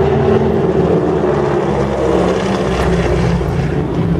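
Three North American Harvard trainers flying past in formation, their nine-cylinder Pratt & Whitney R-1340 radial engines and propellers running loud and steady.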